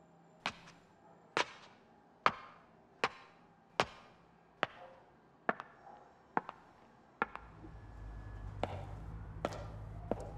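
A steady series of sharp knocks, about one every 0.8 seconds, each with a short echo; some come as quick double knocks. A low hum starts about seven seconds in and runs under the later knocks.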